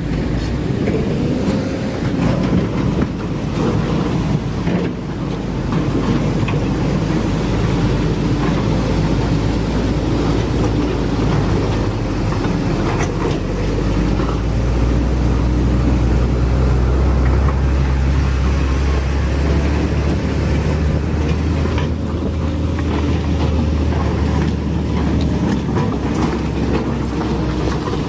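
Hydraulic excavator's diesel engine running steadily. Its low drone grows louder from about halfway through and drops back near the end.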